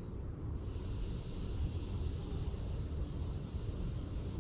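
Steady distant engine rumble from passing motor traffic or an aircraft, with a hiss that comes in about half a second in. A thin, steady, high insect drone runs underneath.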